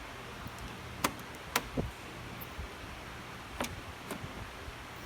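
A few light, sharp clicks and taps from the door handle and its parts being handled, over a low steady hum.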